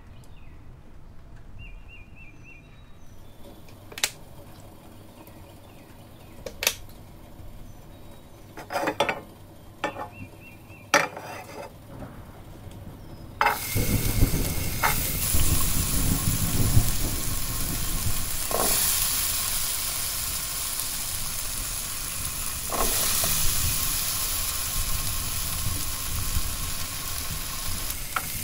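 A few sharp knocks, then about halfway through a loud sizzle starts suddenly as diced raw potato goes into hot oil in a non-stick frying pan. The oil keeps sizzling steadily around the potato cubes.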